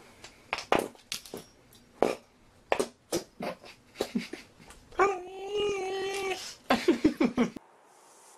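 A dog sniffing in quick, short snuffles, then giving one long whine about five seconds in, followed by a fast run of short whimpers that cuts off suddenly.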